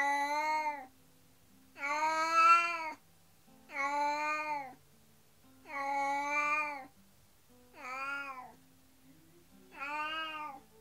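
Domestic black cat meowing repeatedly: six long, drawn-out calls about two seconds apart, in a sad, crying voice. The owners take it for the cat's distress at its housemate being taken away for surgery.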